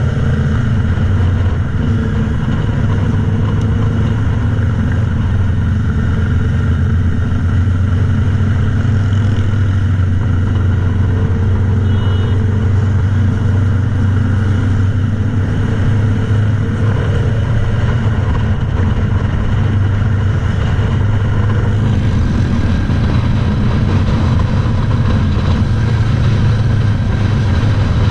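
Motorcycle engine running steadily at cruising speed, heard from the bike's own mounted camera with road and wind noise; the hiss grows a little brighter about three-quarters of the way through.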